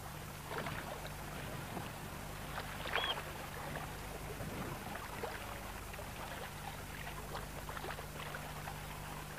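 Water lapping and splashing in small irregular strokes, over a steady low hum, with a single short high chirp about three seconds in.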